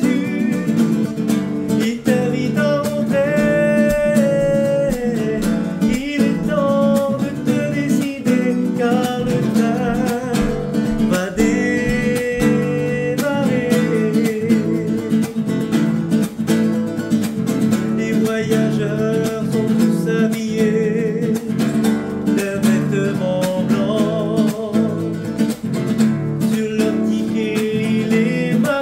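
A man singing a hymn and accompanying himself on a strummed classical guitar.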